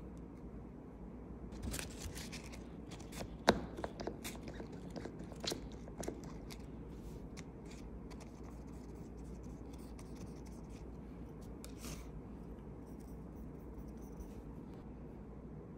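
Scattered small clicks and light scrapes of hands working with nail tools and tips, bunched in the first six seconds with one more near the middle, over a steady low hum.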